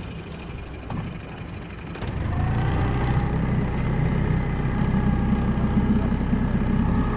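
Yamaha tiller outboard motor throttling up about two seconds in, then running steadily under way.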